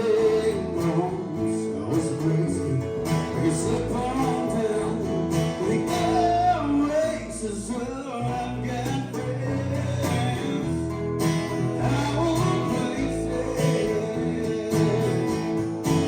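Country music playing: a country song with acoustic guitar and a wavering melody line.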